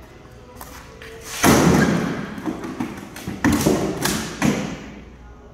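Heavy blows of a long-handled striking tool smashing into a plastic bathtub shell: four hard cracking impacts. The loudest comes about a second and a half in, and three more follow in quick succession near the end, each ringing out briefly in the large hall.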